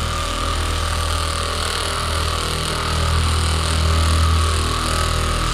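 Electric massager running at its maximum setting: a steady, loud buzzing motor hum with a higher whine above it.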